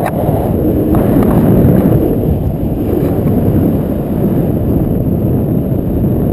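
Airflow buffeting the microphone of a camera carried on a tandem paraglider in flight: loud, steady, low wind noise.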